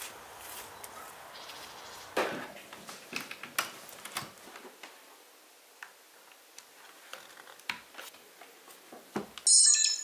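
Sparse small clicks and taps of plastic as a trail camera's case is opened and a USB cable is plugged into it, with a single thump about two seconds in. Near the end comes a short, bright electronic chime, the loudest sound.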